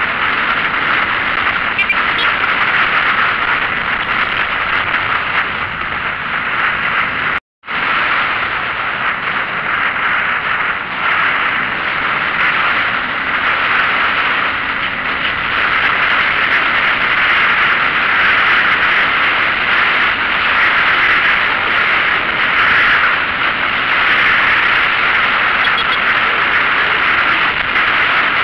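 Steady, loud rush of road and wind noise from a vehicle travelling along a road. The sound cuts out completely for a moment about seven and a half seconds in.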